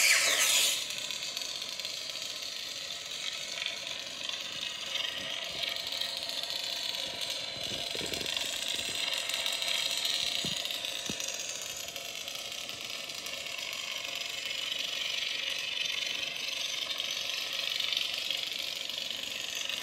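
ProffieOS lightsaber sound from the saber board's speaker: a sudden ignition right at the start, then an unsteady, wavering hum with a rattly edge that runs on while the red unstable Kylo Ren-style blade stays lit.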